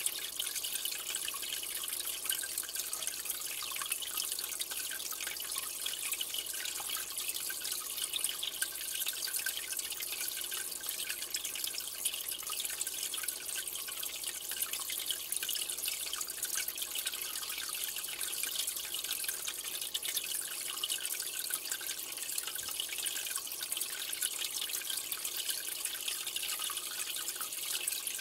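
Aquarium water trickling and dripping steadily, with a fine crackle of many small drips and splashes.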